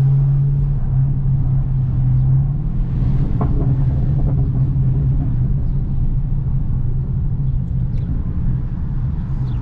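Dodge Charger Hellcat Redeye's supercharged 6.2-litre HEMI V8 running with a steady low rumble, easing a little about two and a half seconds in.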